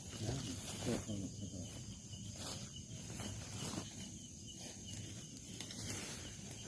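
Steady high-pitched insect drone, with scattered footsteps and rustling of someone walking through undergrowth.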